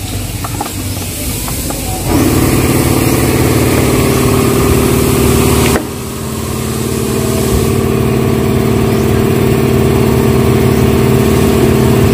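Heavy machine's engine that comes in abruptly about two seconds in, after a few faint clicks, and runs steadily. It breaks off for a moment just before six seconds, then runs on, slowly getting louder.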